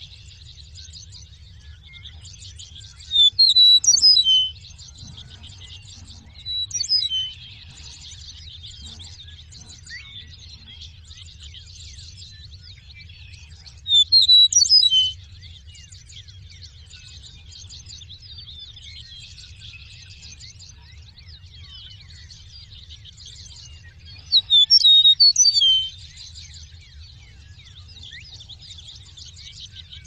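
Eastern meadowlark singing: three loud songs of clear whistled notes sliding downward, about ten seconds apart, with a shorter fainter phrase between the first two. Underneath runs a continuous high chatter and a steady low hum.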